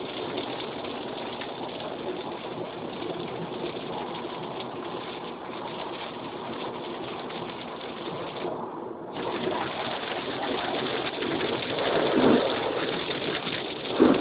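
Heavy rain and wet-road noise heard from inside a moving car: a steady wash of rain on the car's body and tyres hissing through standing water. It swells louder twice near the end.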